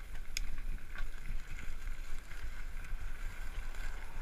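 Tandem bicycle rolling slowly over a gravel path, its tyres crunching on the stones, with a couple of sharp clicks from the bike and a low wind rumble on the microphone.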